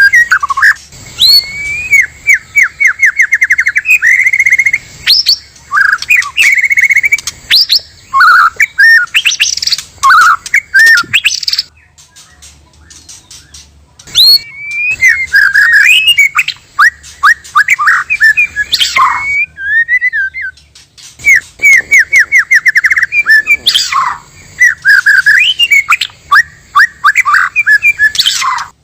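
White-rumped shama (murai batu) singing loudly: rapid trills and varied whistled phrases, broken by a pause of about two seconds roughly twelve seconds in and a shorter one near twenty seconds.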